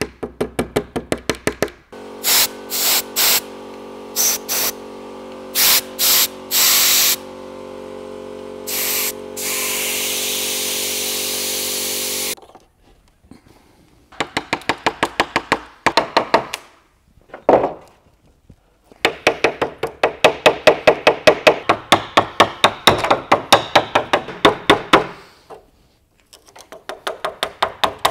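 Rapid knocking, about five or six blows a second, as a wooden block hammers wooden wedges between a cured fibreglass rudder half and its mold to pry the part loose. The knocking comes in runs. In a long break partway through, a steady machine hum sounds with several short hisses and then a longer hiss.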